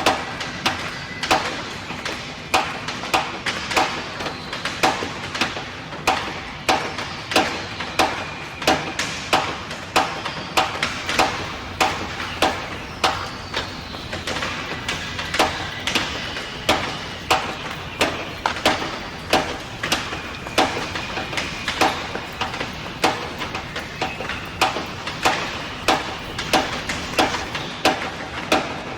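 Sharp knocks at a steady rhythm of about three every two seconds, over a continuous wash of sound with faint high tones.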